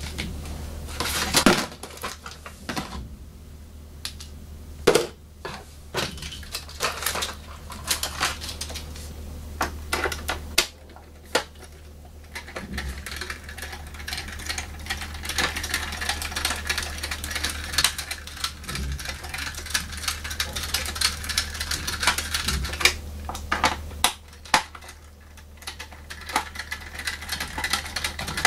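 Hand screwdriver turning out the screws that hold a diecast model car to its packaging base: quick irregular clicks and small scrapes, denser from about halfway through, with a few louder knocks in the first seconds, over a steady low hum.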